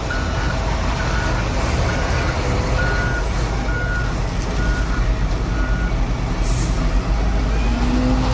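Reversing alarm on a JCB 3DX backhoe loader beeping about once a second over its running diesel engine. The beeping stops about six seconds in, and the engine keeps running.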